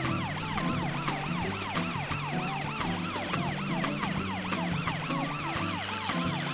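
Ambulance siren wailing in quick rising-and-falling sweeps, about three a second, as the ambulance drives in.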